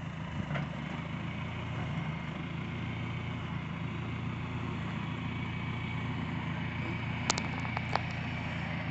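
Tractor backhoe-loader engine running steadily at an even speed, with two sharp knocks near the end.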